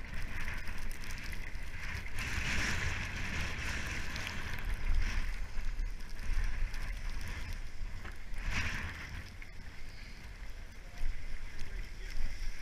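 Skis hissing as they slide over packed snow, swelling louder a couple of times, with wind rumbling on the microphone.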